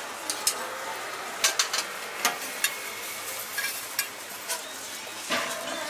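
Hotteok cooking on a griddle: a steady frying hiss with sharp, irregular clicks and taps of metal utensils against the hot plate.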